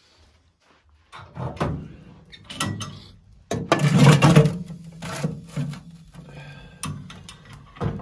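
A series of knocks and clatters from objects being handled, with a longer, louder clatter about halfway through.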